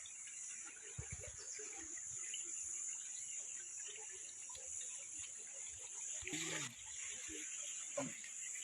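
Steady high-pitched insect chorus, with faint distant voices, one a little louder about six seconds in.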